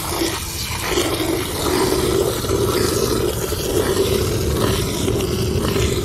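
Cow being hand-milked: jets of milk squirting from the teats into a metal bucket already holding foamy milk.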